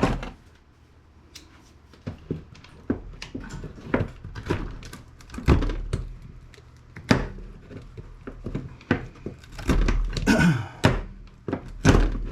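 Shears snipping through the wires of a desktop computer power supply: a dozen or more irregular sharp snips and clunks as the wires are cut away.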